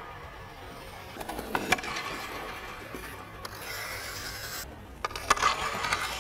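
Hockey skate blades scraping across the ice, with sharp clacks of stick on puck about two seconds in and again near the end.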